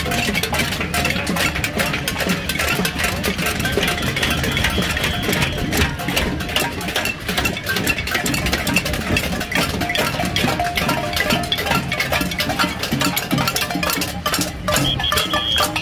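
A marching crowd banging pots and pans: a dense, unbroken clatter of metal strikes with brief ringing tones now and then.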